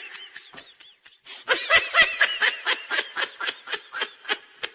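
High-pitched laughter in quick repeated 'ha-ha' bursts. It breaks off briefly about a second in, then starts again and fades near the end.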